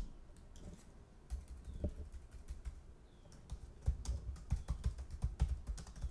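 Computer keyboard typing: a few scattered keystrokes, then a quicker run of keystrokes from about four seconds in.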